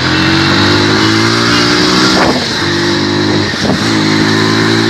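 Motorcycle engine running hard under acceleration, its pitch climbing and then dropping briefly about two seconds in and again a second and a half later, with a steady rush of wind noise on the moving bike.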